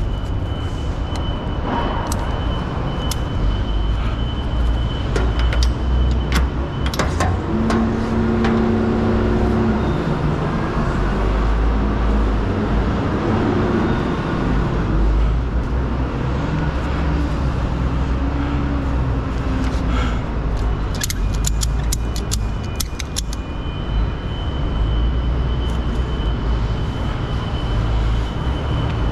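Ratchet-strap hooks and buckles clinking and rattling against a trailer's side as cargo straps are handled, with a few sharp clicks about five to seven seconds in and a quick run of clicks near the end, over a steady low rumble and a thin steady high tone.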